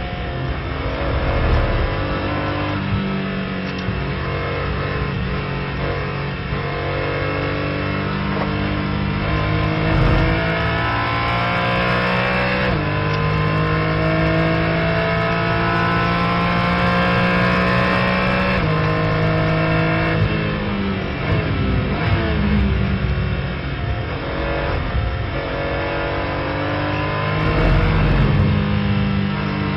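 Onboard sound of a Porsche 718 Cayman GT4 race car's flat-six engine at full throttle, its pitch climbing again and again as it pulls up through the gears. About two-thirds through the pitch falls away as the car brakes and downshifts, then it climbs again.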